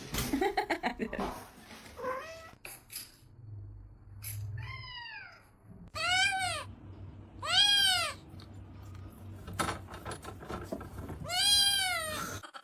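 Domestic cat meowing four times; each call rises and then falls in pitch, and the last three are the loudest. A few clicks and rustles come in the first couple of seconds.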